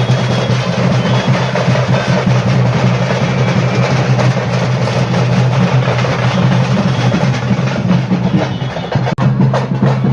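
Loud, fast drumming with a dense, continuous beat, like festival procession drums. It breaks off for an instant about nine seconds in.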